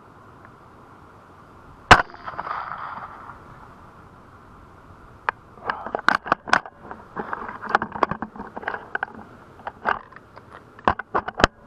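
A single suppressed rifle shot about two seconds in, from an LWRC Razorback II in 6.8 firing 110-grain ammunition through a Bowers Vers 30T suppressor, with a brief noisy tail. From about five seconds in come many irregular sharp clicks and knocks.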